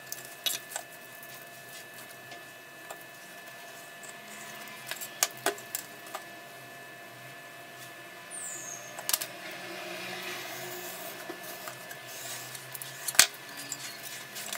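Scattered light clicks and taps of a steel ruler and a small hand tool being set down and moved on a cutting mat and foamcore board, the loudest a sharp tap near the end, over a steady low hum.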